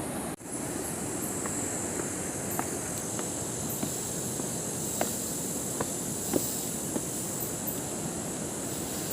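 Steady rushing of a waterfall heard from a little way off, with insects buzzing high and steady over it and a few faint clicks of footsteps on the trail.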